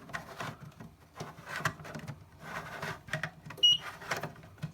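Plastic smoke detector head being fitted and twisted back onto its ceiling base, making repeated scraping and rubbing sounds and a few clicks. A short high beep sounds about three and a half seconds in.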